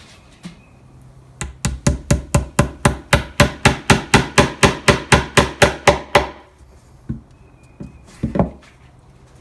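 Hammer driving an upholstery tack through a leather corner into a pre-drilled hole in a tolex-covered plywood speaker cabinet. About two dozen quick, even taps, roughly five a second, start about a second and a half in and stop around six seconds, followed by a couple of single knocks.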